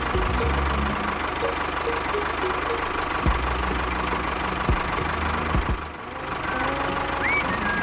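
An engine-like motor running steadily with a low chugging and a broad hiss, broken by a few sharp knocks.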